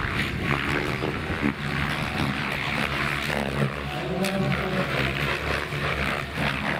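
Several electric radio-controlled helicopters flying aerobatics together: the whoosh of their rotor blades over the whine of the brushless motors, rising and falling in pitch as they manoeuvre.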